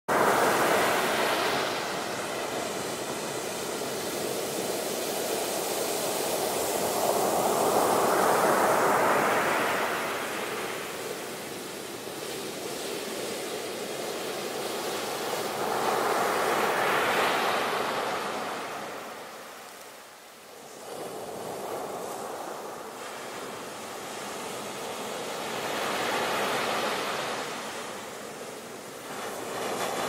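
Ocean surf breaking: a continuous rush of water that swells and fades with each wave, about every eight or nine seconds, easing off briefly past the middle.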